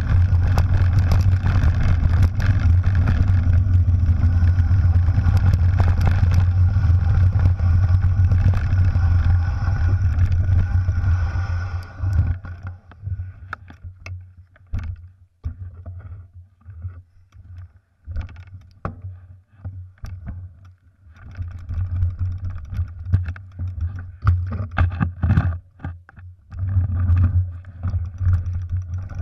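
Mountain bike descending a loose gravel track, heard from a handlebar-mounted camera: a steady rush of wind on the microphone with the low rumble of tyres on gravel. About twelve seconds in the rush drops away to scattered clicks and rattles from the bike, then builds back near the end.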